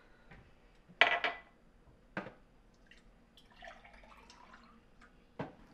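A drinking glass handled on a kitchen counter, with a few sharp knocks and clinks, the loudest about a second in. Then water poured from a plastic filter pitcher into the glass, splashing for about a second, and another knock near the end.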